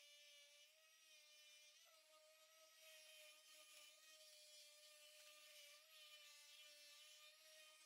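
Cordless random orbital sander running against a boat deck, a faint steady motor whine whose pitch wavers slightly as the pad is pushed around.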